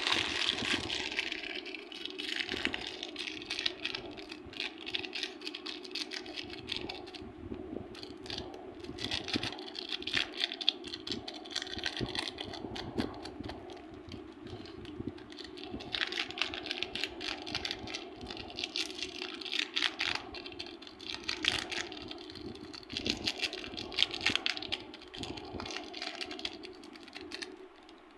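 Slime squished and stretched by hand, giving a dense run of small sticky clicks and pops that swell and ease, over a steady low hum.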